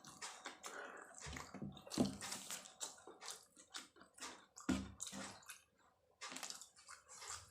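Close-miked eating sounds: wet, irregular chewing and lip smacking on a mouthful of martabak telur, with a few heavier mouth sounds.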